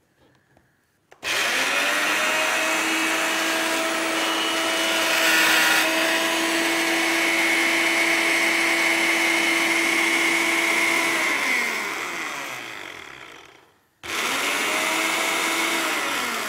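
Moulinex electric mini chopper's motor grinding olives and capers into a tapenade. It whirs up to speed with a rising whine about a second in, runs steadily for about ten seconds, and winds down with a falling pitch. It then runs again in a shorter second burst near the end.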